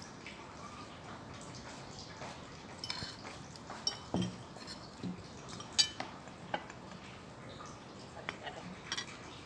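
Spoon and fork clinking and scraping on a ceramic plate, with a small glass dish knocking down onto the table. There are scattered short clinks and taps, the sharpest a little past halfway.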